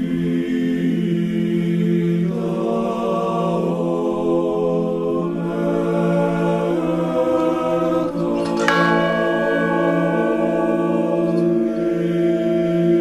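Large bronze church bell rung by pulling the rope tied to its clapper. It strikes at the start and again about two-thirds of the way through, and each stroke rings on with a long, steady hum. Held choral chanting sounds beneath it.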